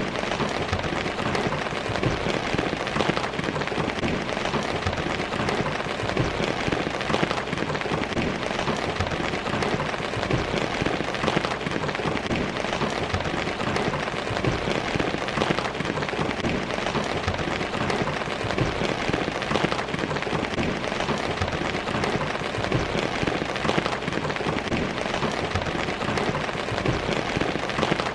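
Steady, heavy rain falling, a dense even patter of drops hitting surfaces.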